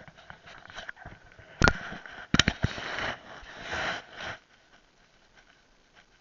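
Mountain bike riding over rough trail: tyre and ground noise with a few sharp knocks from the bike over bumps, dying away to quiet about four and a half seconds in.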